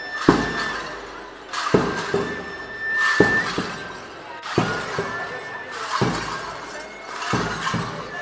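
Folk dancers stamping in time, the metal jingles at their ankles crashing together in a steady beat, six times about a second and a half apart, over a thin high held tone.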